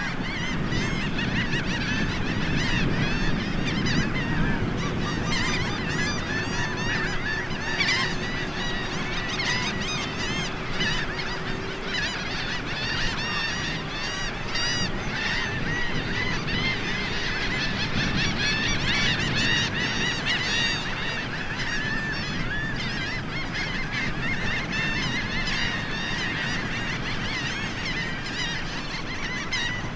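Dense chorus from a huge flock of shorebirds, ruddy turnstones and red knots, with countless short calls overlapping without a break.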